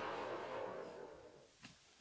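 Echo of a shotgun blast rolling away and fading out over about a second and a half, followed by a faint single tick.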